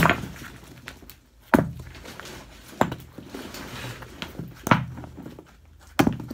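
Five sharp knocks and thumps at uneven intervals over about six seconds, from objects being handled close to the microphone, with a short echo off the concrete walls of the cistern.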